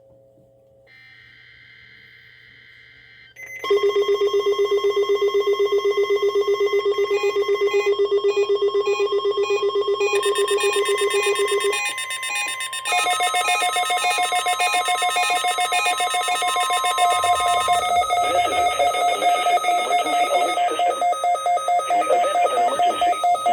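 Several electronic alert tones sounding together, pulsing rapidly, the kind an emergency alert receiver gives when a test comes in. They start loud about three and a half seconds in after a faint stretch, and their pitches shift several times.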